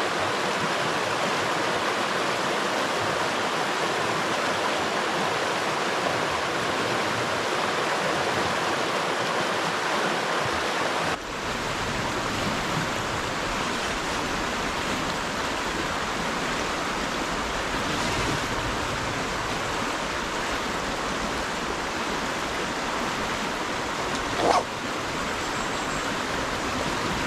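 River water rushing steadily. About 11 seconds in the sound changes abruptly and gains a deeper rumble, and a short sharp sound stands out briefly near the end.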